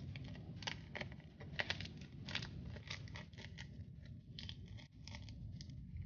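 Homemade paper pop-it fidget being pressed, its taped-on cones pushed in and out by fingers. It gives faint, irregular crinkly clicks, about two a second.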